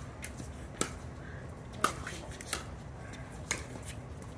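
Sharp hollow pops of pickleball paddles striking a plastic ball, several in a row about a second apart, as in a rally, over a low steady background rumble.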